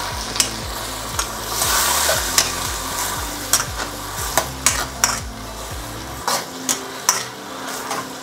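Metal wok ladle scraping and clinking against a hammered wok as beef and vegetables in sauce are stirred, over a steady sizzle of the hot sauce.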